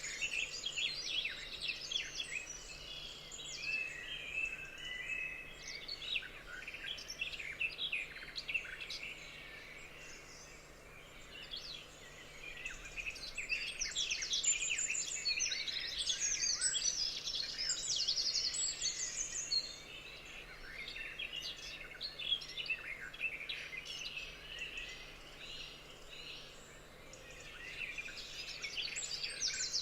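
Several forest birds singing together, a dense chorus of high chirps, trills and short whistled notes. It thins out briefly about ten seconds in and again past twenty-five seconds.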